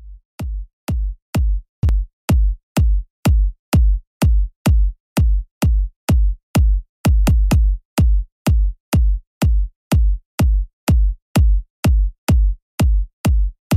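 Background electronic music: a steady kick-drum beat of about two beats a second, with no melody, fading in over the first second.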